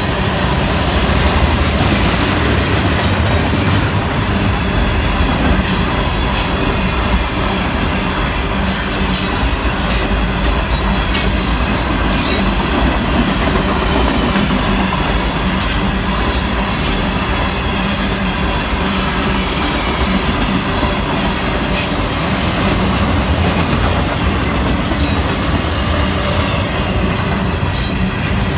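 A long freight train's cars rolling steadily past: a continuous rumble of wheels on rail, with scattered sharp clacks from wheels over joints and faint high wheel squeal.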